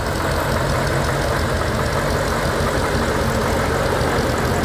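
1952 Nuffield tractor engine running steadily at low revs as the tractor drives slowly forward.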